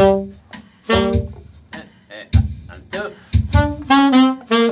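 Two saxophones playing short, detached notes together in phrases of an E minor pentatonic scale exercise, with low drum hits in between.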